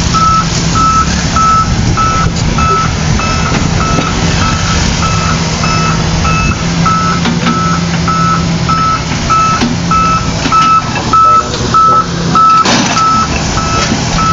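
Reversing alarm on a truck or heavy machine, beeping steadily at one pitch about twice a second, over the low hum of its running diesel engine. A single knock comes about three-quarters of the way through.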